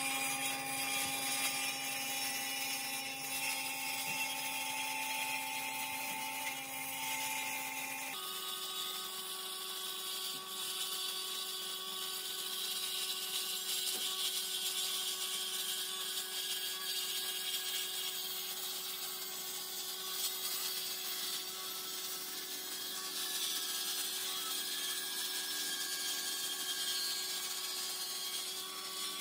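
Electric jointer-planer running steadily while a thick pine board is pushed across its cutter head, a hum with a bright hiss above it. The sound shifts abruptly about eight seconds in.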